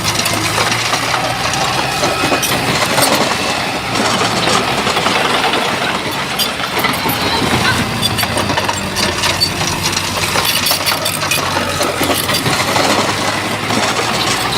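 Shantui bulldozer's diesel engine running steadily, with a dense clatter of sharp clicks and clinks over it from the machine working.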